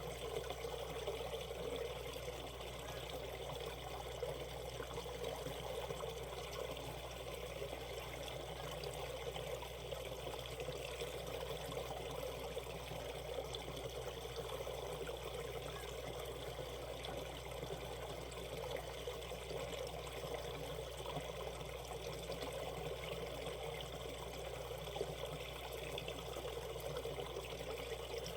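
Valley stream flowing over shallow rapids: a steady, unbroken rush of running water.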